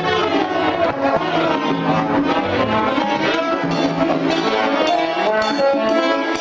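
Latin dance music led by a brass section, with a steady bass line and regular percussion strokes.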